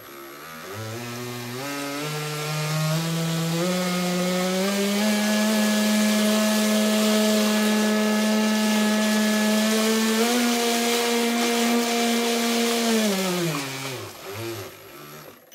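RC jet boat's 5100kv brushless motor and jet drive whining under throttle, the pitch climbing in steps over the first few seconds, holding steady at full speed with a small jump about ten seconds in, then winding down near the end, over a steady hiss.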